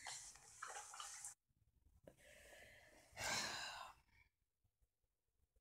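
A person sighing once, an exhale lasting about a second just after three seconds in; the rest is near silence.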